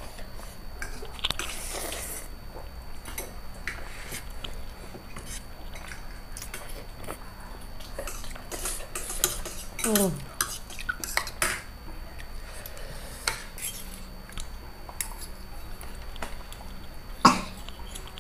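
Metal forks and spoons clinking and scraping on plates as people eat noodles, in scattered irregular clicks. The sharpest clink comes near the end.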